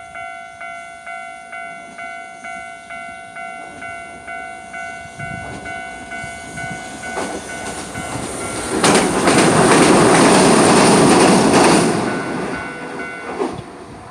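Level crossing warning bell ringing in a steady repeating rhythm while a Hiroden (Hiroshima Electric Railway) tram approaches and passes close by, loudest for about three seconds past the middle. The bell stops near the end as the tram fades away.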